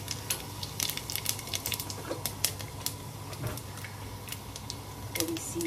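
Cumin seeds crackling in hot mustard oil at the start of a tadka (tempering): irregular sharp pops, several a second, over a steady low hum.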